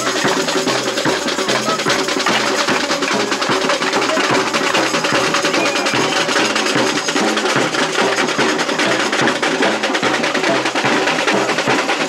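Samba bateria drumming in a steady groove: deep surdo bass-drum pulses repeat under dense, sharp higher percussion.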